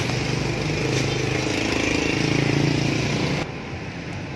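An engine running steadily, swelling slightly, then cut off abruptly just over three seconds in, leaving a quieter background hum.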